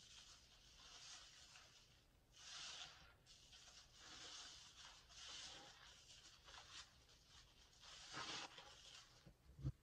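A soapy sponge squeezed and kneaded by hand, its lather squishing and crackling in faint swells, about five squeezes. A soft low thump comes just before the end.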